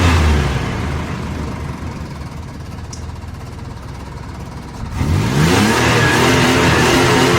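Car engine dropping from high revs to a rough, uneven idle, then revved up again about five seconds in and held at high revs. The ragged idle is the sign of an engine running poorly.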